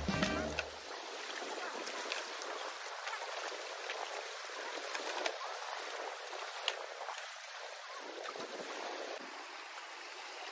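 Small waves lapping at the edge of a shell-and-gravel beach: a steady wash of water with a few faint clicks.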